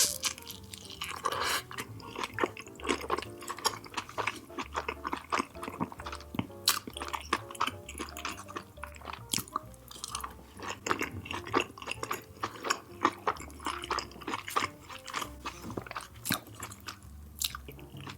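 Close-miked chewing of Indian curry and bread, with many small irregular mouth clicks and smacks, over soft background music.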